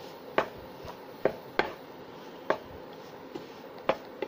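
Wooden spatula knocking and scraping against a nonstick frying pan while stirring fried rice, with about six sharp knocks at uneven intervals.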